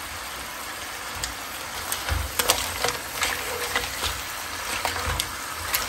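Razor clams and their garlic butter sauce sizzling steadily in a pan over high heat as they are stir-fried, with scattered clicks and knocks of the spatula and shells against the pan.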